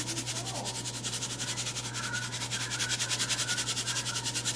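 Dry breadcrumbs being shaken from a canister onto a casserole: a rapid, even patter of soft hissing pulses, about ten a second. A steady low hum runs underneath.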